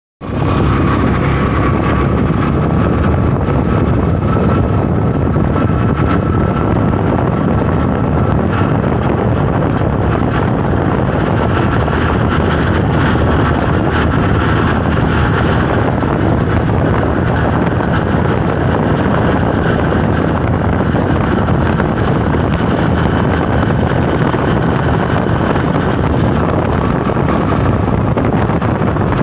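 Loud, steady engine and road noise of an open-sided passenger vehicle driving along, with wind on the microphone. A faint steady whine sits over the rumble for the first several seconds.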